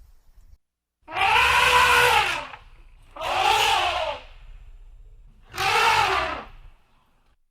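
Asian elephant trumpeting three times, each call about a second long and arching up then down in pitch, with a brassy, noisy edge.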